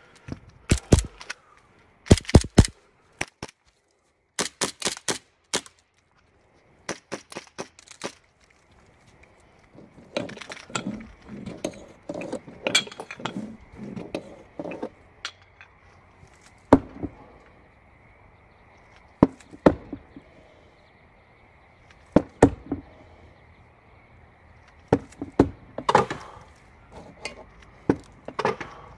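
Pistol fired in quick strings of shots, then thrown knives striking the wooden targets one at a time, a few seconds apart.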